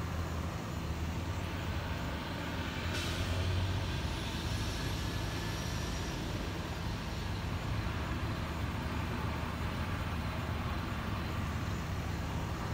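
Dump truck's diesel engine running steadily, with a sudden sharp hiss of air from its air brakes about three seconds in.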